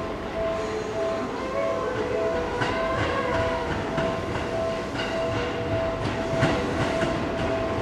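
Seibu 2000-series electric train moving slowly during a shunting move, its wheels clicking over rail joints and points, with short squeals. A repeating electronic warning tone beeps on and off about twice a second throughout.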